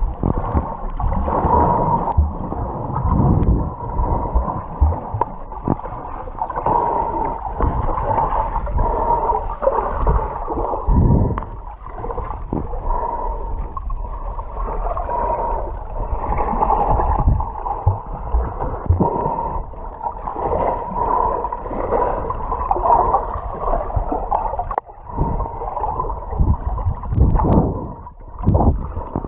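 Water gurgling and sloshing around an underwater camera held at or just below the sea surface. The sound is muffled and churning, rising and falling unevenly, with a brief lull late on.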